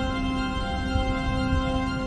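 Background music with slow, sustained chords held over a low rumble.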